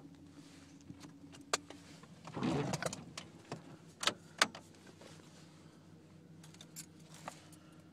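Handling sounds inside a parked car's cabin over a low steady hum: a few sharp clicks and a brief rustle about two and a half seconds in, as someone moves about in the seat.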